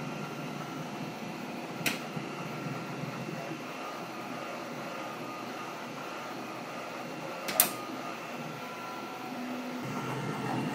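Steady machine hum of the 3D printer and filament loader running, with two sharp clicks about six seconds apart, the second louder, from the InfinityFlow S1 filament cutter as it comes down and cuts off the end of the spent filament.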